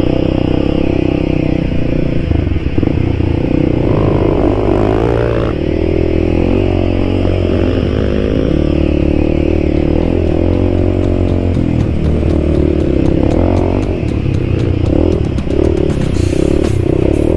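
Single-cylinder four-stroke dirt bike engine running under load off-road, the revs rising and falling with the throttle. Toward the end, rapid clicks and clatter over rough ground.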